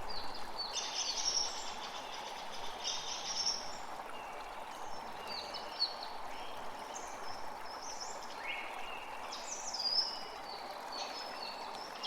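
Wild birds chirping and twittering in short, quick phrases over a steady rushing background of wind.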